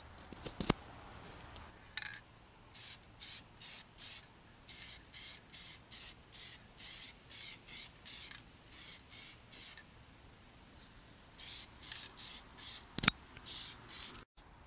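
Aerosol can of Plasti Dip glossifier spraying in short hisses, about two a second, pausing briefly and then resuming. A single sharp click sounds near the end.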